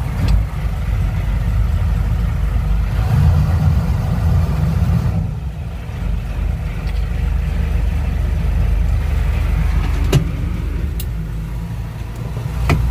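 Fishing boat's inboard engine running, heard from inside the wheelhouse. It swells about three seconds in and eases back about two seconds later. A few sharp clicks or knocks sound over it.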